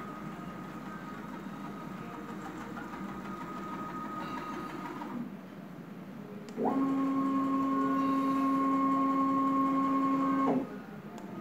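A 3-axis CNC router's axis drive motors whining as the gantry moves: one quieter, higher-pitched move for the first half. Then, after a short pause, a louder, lower-pitched move whose pitch sweeps up quickly as it starts and drops as it stops.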